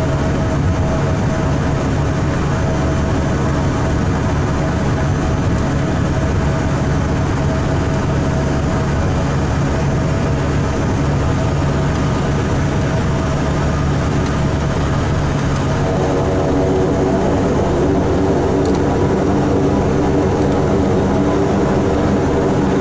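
Beechcraft King Air 90's twin Pratt & Whitney PT6A turboprop engines and propellers running steadily at taxi power, heard from inside the cockpit. About sixteen seconds in, the engine tone changes and grows slightly louder.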